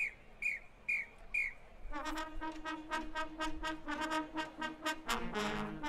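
Four short, high whistle blasts in quick succession, like a drum major's count-off. About two seconds in, a marching band's brass enters with rapid, repeated punched notes, and a brief noisy burst comes near the end.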